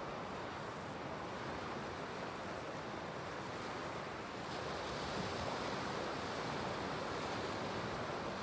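Sea waves breaking and washing over a rocky shoreline in a steady rush, swelling a little about halfway through.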